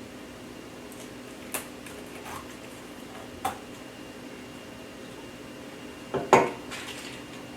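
Metal kitchen tools clinking and knocking against a counter or dish: a few light clicks, then a louder clatter near the end, over a steady low hum.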